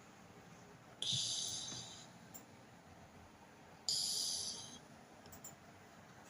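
A sleeping cat snoring: two breaths about three seconds apart, each a sudden hissy rush that fades away over about a second.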